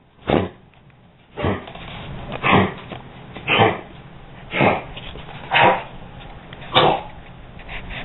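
11-year-old dog coughing over and over, seven short harsh coughs about a second apart. The cough has been persistent, several times a day, and its cause is not yet known; the owner fears heartworm or heart disease and hopes it is something caught in her throat.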